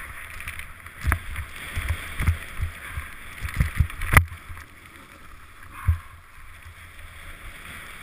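Snowboard sliding and bumping over snow, heard through a helmet-mounted camera housing: a steady hiss with irregular low thuds and two sharp knocks, about a second in and about four seconds in. It grows quieter in the second half.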